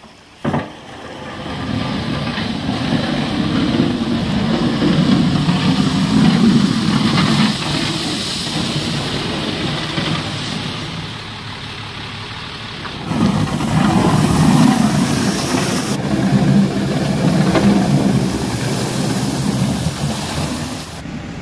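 Ram 3500 pickup's Cummins turbo-diesel engine working under load as its SnowEx plow blade pushes and scrapes wet, heavy slush along the pavement, with a continuous scraping hiss over the engine. The sound builds about two seconds in, eases off for a few seconds past the middle, then picks up again.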